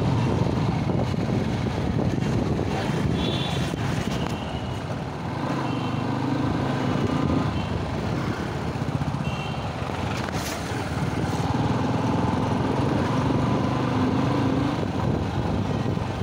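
Motorcycle engine running steadily under way, with road and wind noise from riding through traffic. A couple of short high beeps sound about 3 and 9 seconds in.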